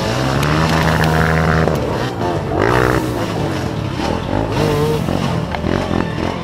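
Dirt bike engine revving up and down, its pitch rising and falling several times.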